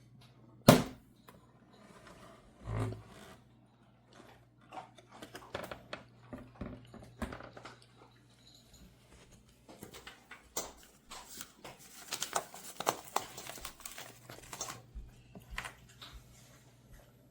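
Hands handling objects: a sharp click about a second in, a duller knock a couple of seconds later, then a long run of small irregular clicks and rustling, over a faint steady low hum.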